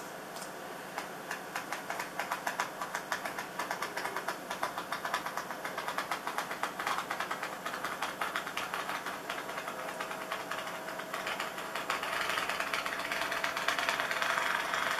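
Scissors cutting a strip from a sheet of PVC tarp, a fast, even run of snips that grows louder and denser near the end.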